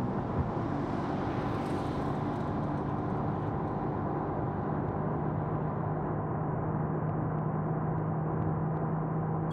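Turbocharged 660cc three-cylinder engine of a Spoon-tuned Honda S660 running at high revs under full acceleration at speed, a steady drone with tyre and wind noise. A hiss swells and fades over the first few seconds.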